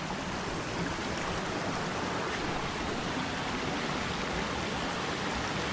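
Steady rushing of a creek and waterfall pouring into a rocky pool.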